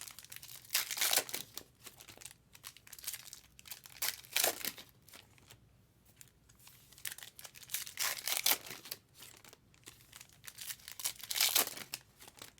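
Trading-card pack wrappers crinkling and tearing and cards being handled, in irregular rustling bursts as packs are opened.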